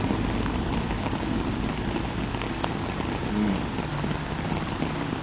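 Steady rain falling, an even hiss with scattered drop ticks over a low rumble.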